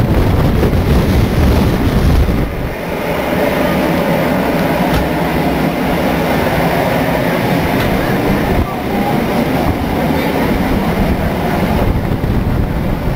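Steady rumble and rattle of a heritage railway carriage running on the track, heard from on board the moving wooden coach.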